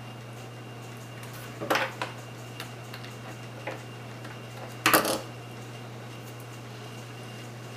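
A few light clicks and clatters of small hand tools and plastic plug parts being handled while a wire is fastened to a plug's terminal screw. Two come close together about two seconds in, and the loudest, a double knock, comes about five seconds in.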